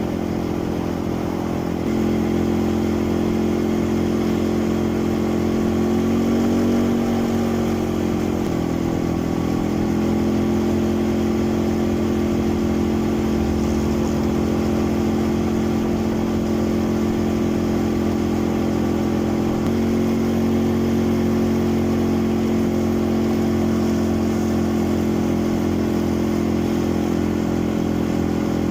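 Quad bike (ATV) engine running steadily under way. Its note picks up about two seconds in, rises and falls briefly a few seconds later, and shifts again about two-thirds of the way through.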